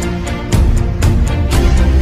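Background music with a steady beat and deep held bass notes.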